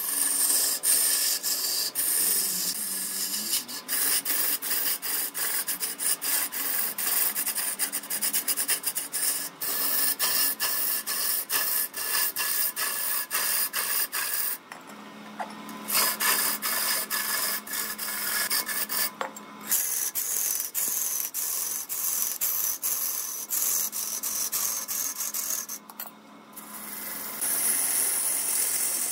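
Long hand-held turning tool cutting into a large log spinning on a wood lathe: a dense, continuous scraping rasp as shavings are peeled off, broken by a few brief pauses when the tool eases off, where the lathe motor's low steady hum shows through.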